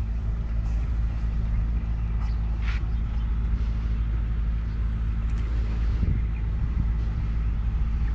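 Steady low hum of an engine running, with a brief faint higher sound a few seconds in.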